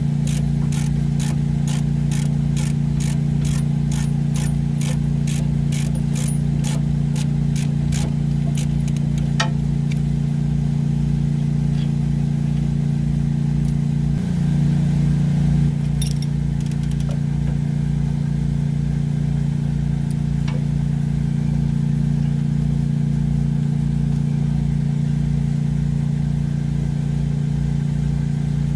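A steady, loud mechanical hum runs throughout and swells briefly about fourteen seconds in. Over it come regular sharp clicks, about two or three a second, for the first nine seconds or so, then only a few scattered clicks.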